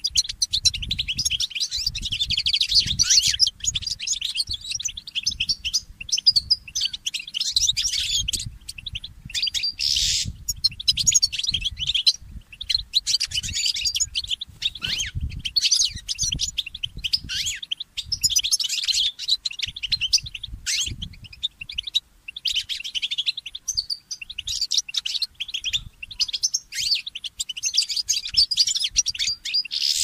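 Goldfinch mule (goldfinch–canary hybrid) singing a fast, continuous twittering song in phrases separated by brief pauses.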